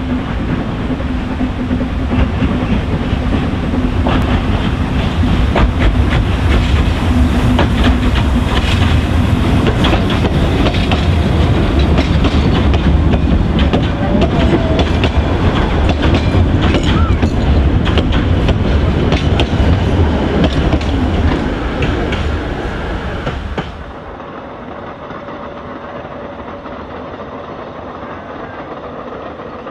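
Narrow-gauge steam train passing close by: loud rumble and wheel clatter from the locomotive and carriages. About 24 seconds in, it gives way abruptly to a much quieter, distant train sound.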